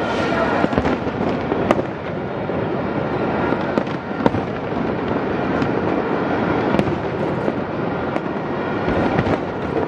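Fireworks display going off: a dense, continuous rumble of bursts with sharp cracks scattered irregularly through it.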